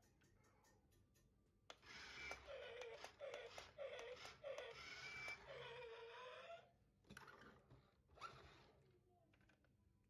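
The built-in speaker of a battery-powered toy sports car plays a recorded sound clip for about five seconds, with most of its sound high and little low end. Two short sound effects follow about seven and eight seconds in.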